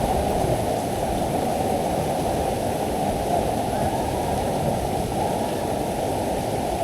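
Steady rush of river water around the raft, an even noise without distinct splashes.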